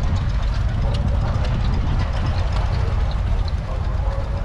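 A 1961 Massey Ferguson 35's Perkins A3.152 three-cylinder diesel idling steadily, with an even, rapid beat.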